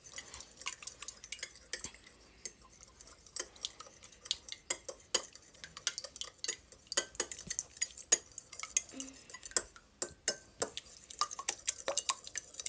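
Metal fork whisking eggs and milk in a bowl, clicking rapidly and irregularly against the sides.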